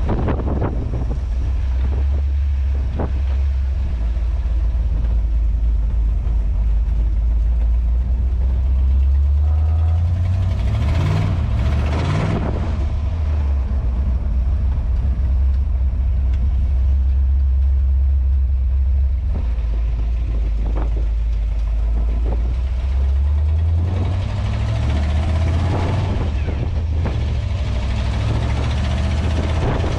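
1967 Ford Mustang Fastback's engine running as the car is driven, with a heavy low rumble throughout. The revs rise about ten seconds in and again near the end.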